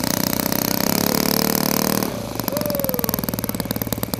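Small engine of a radio-controlled model T-28 Trojan running as the plane taxis. It is throttled up louder for about the first two seconds, then drops back to a steady idle with a rapid, even putter.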